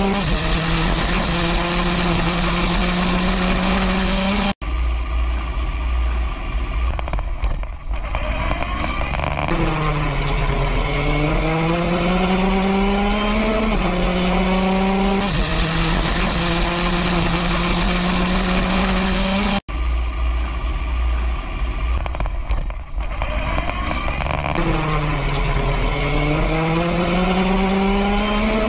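Open-wheel formula race car's engine heard onboard at high, steady revs, with wind rush. Twice the engine note sags and then climbs back up as the car lifts and re-accelerates, and the sound cuts out for an instant twice.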